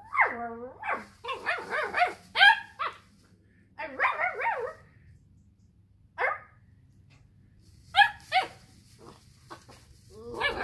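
A 12-week-old working cocker spaniel puppy barking and yelping in a duet with a person barking back at it. The calls glide up and down in pitch and come in short bouts with pauses of a second or two between them.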